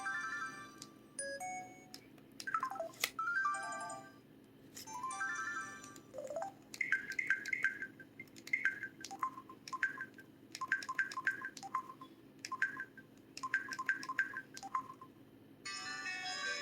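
LG-KC3500 mobile phone playing its built-in sound effects one after another: short electronic chimes and beep sequences with pauses between them, some gliding downward, a run of quick repeated blips, and a longer melodic tone starting near the end.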